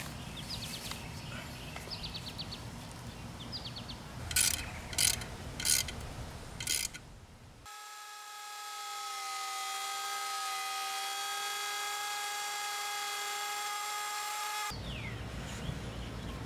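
A few light clicks and four sharp knocks, then an electric wood router running with a steady high whine for about seven seconds, stopping abruptly.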